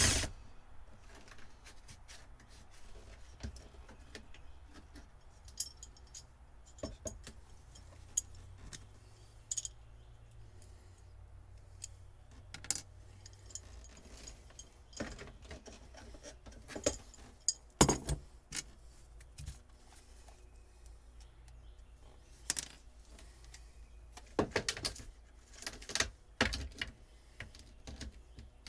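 Scattered light metallic clicks and clinks of a hand tool and small parts being handled while old boat wiring is worked loose, irregular and sparse, with a few louder knocks near the middle and toward the end.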